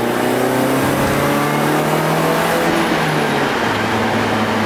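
1981 Toyota Corolla's engine pulling hard under full throttle, heard from inside the cabin, its pitch climbing for about three seconds before dropping at a gear change about three and a half seconds in. The engine is misfiring under load.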